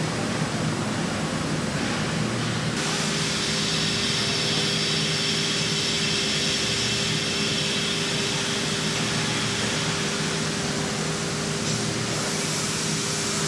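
CNC gantry router with a 5.5 kW mechanical spindle running steadily over a low machine hum. About three seconds in, a steady whine and a brighter high hiss join it and hold.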